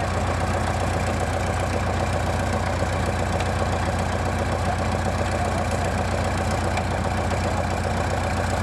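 Old Caterpillar crawler dozer's engine running steadily at low speed, a low, even drone.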